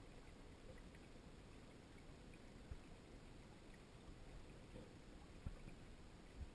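Near silence: the faint, muffled low rumble of water heard from inside a GoPro's waterproof dive housing underwater, with a few soft low knocks.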